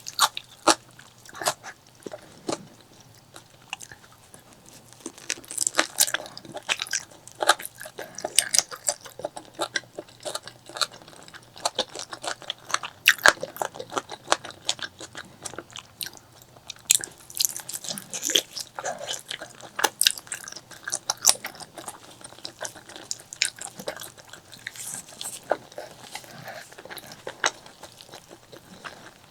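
A person chewing and biting spicy pork leg curry close to the microphone: a dense, irregular run of wet smacks, clicks and crunches.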